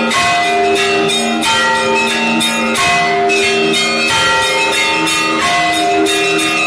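Russian Orthodox church bells rung by hand in a festive peal. Several bells of different pitch are struck in quick succession, with the deeper bells' tones ringing on beneath. The pattern repeats about every second and a half.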